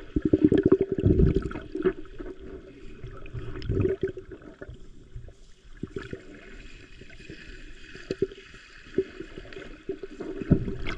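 Muffled underwater sound through a camera held below the surface in shallow water: sloshing and gurgling with a crackle of small clicks. It is heavier in the first second and a half and again near four seconds in, then lighter.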